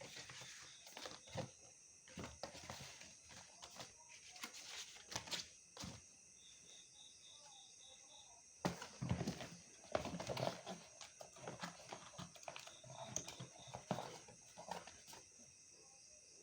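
Scattered knocks and rustles from objects being handled, over a steady high-pitched insect chirring, with a short run of quick chirps about seven seconds in.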